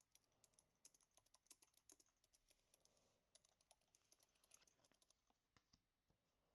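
Faint, rapid clicking and tapping, dense for about five seconds, then a few scattered clicks near the end.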